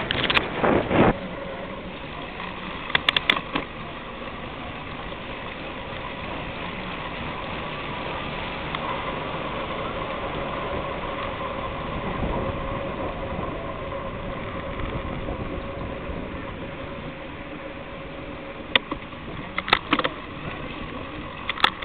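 A small motor running steadily with a hum and a faint whine that wavers slightly in pitch, with a few sharp knocks near the start and near the end.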